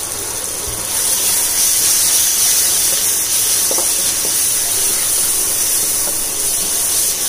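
Sliced onions and tomatoes with chilli powder sizzling in hot oil in a nonstick pan, stirred with a wooden spatula. The sizzle grows louder about a second in. This is the masala being sautéed to cook off the raw smell of the chilli powder.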